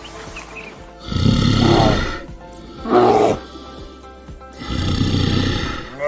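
Three loud, rough animal calls, each lasting about half a second to a second, over steady background music.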